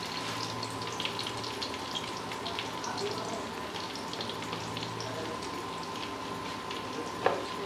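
Oil sizzling in a frying pan with light, scattered crackles, over a steady low hum and a thin steady tone, with one small knock near the end.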